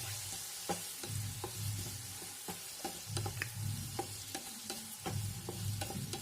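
Small-diced potatoes frying in oil in a kadai, sizzling while a spatula stirs them in with salt and turmeric, making irregular scraping clicks against the pan.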